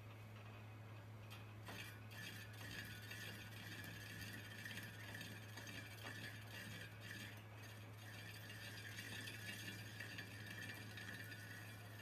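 Metal lathe running with a tractor wheel rim plate spinning in its chuck: a quiet, steady low motor hum with an even hiss above it and a few faint clicks.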